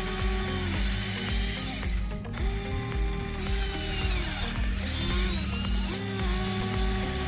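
Background music with a steady bass beat, over the whine of an RC excavator's electric motors and gears speeding up, holding and winding down as it works.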